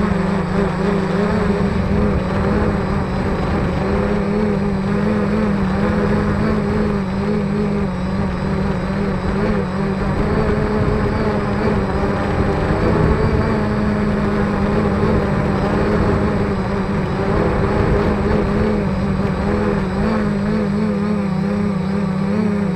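Quadcopter's electric motors and propellers whirring steadily, heard from the onboard camera, a constant hum whose pitch wavers slightly.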